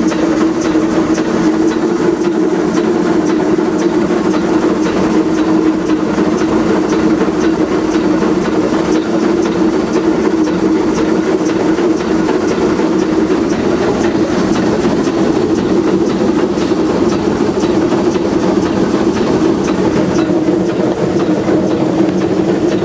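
Shay geared steam locomotive under way, heard from inside its cab: a loud, steady drone with a fast run of regular ticks over it.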